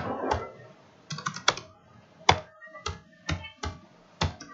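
Computer keyboard keys being typed one by one in slow, uneven keystrokes: a quick cluster of several clicks about a second in, then single clicks spaced about half a second apart.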